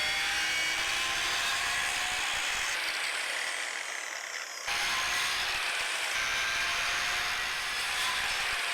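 Handheld electric circular saw running and cutting into a block of reclaimed wood. The level eases off for a moment, then jumps back up just before the halfway point.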